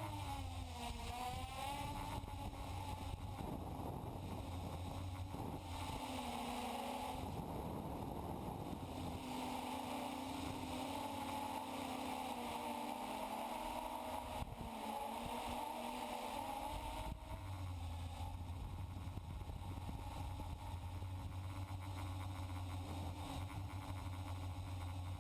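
FPV quadcopter's electric motors and propellers whining, the pitch rising and falling with throttle, heard through the GoPro mounted on the craft, with a low steady hum beneath.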